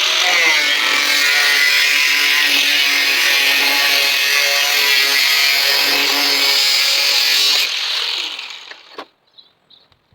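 Electric grinder cutting into the rusty steel skin of a car door bottom: it starts suddenly, runs steadily with a high whine, and is switched off about three quarters of the way through, spinning down over about a second.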